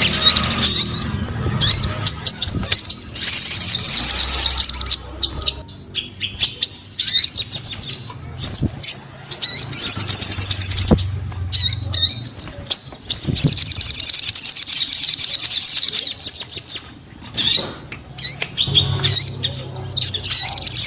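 Sogon bird singing loudly in long, rapid high-pitched trilling phrases, with short breaks between them.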